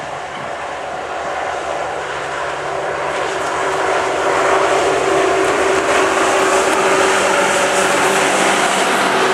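ST44 diesel locomotive's two-stroke V12 engine running as it approaches, a steady drone that grows louder over the first few seconds and holds loud as the locomotive draws level.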